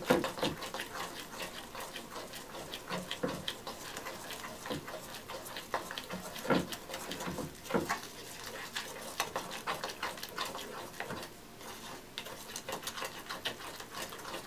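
A plastic knife stirring a wet bentonite clay and apple cider vinegar paste in a glass bowl: wet stirring with irregular clicks and taps of the knife against the glass.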